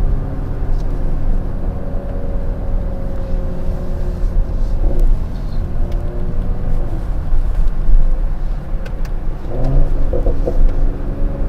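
Mercedes-AMG GLE 53's 3.0-litre six-cylinder engine running steadily through the AMG exhaust with its valves open in Sport Plus mode. A few sharp pops and crackles come from the exhaust near the end.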